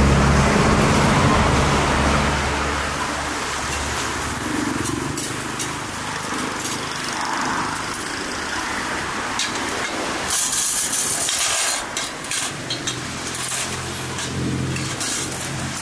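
Roadside traffic noise: a motor vehicle running close by, its steady low hum fading over the first few seconds, then general street noise with scattered light clicks and a loud hiss lasting just over a second about ten seconds in.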